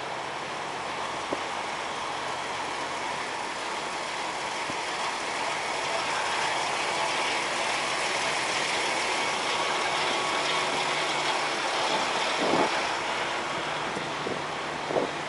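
Steady drone of parked semi trucks idling, with two brief louder sounds near the end.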